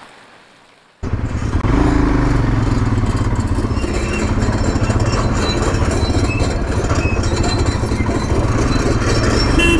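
Motorcycle engine running steadily while the bike rides a rough dirt road, heard close up from a camera on the bike. It starts abruptly about a second in, after a near-quiet moment.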